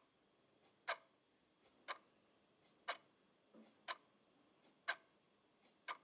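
Clock ticking: one sharp tick about every second, each with a fainter tick just before it.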